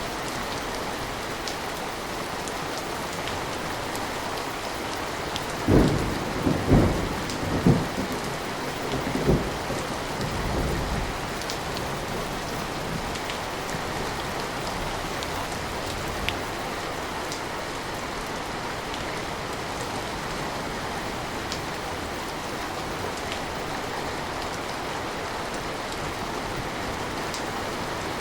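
Steady rain falling, with a thunderclap about six seconds in: several sharp cracks over a couple of seconds, then low rumbling that dies away by about eleven seconds in.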